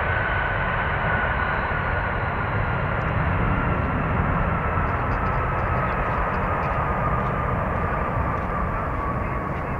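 Airbus A350-941 airliner's Rolls-Royce Trent XWB turbofans during the landing rollout: a steady rushing noise with a high whine that slowly falls in pitch as the jet slows down the runway.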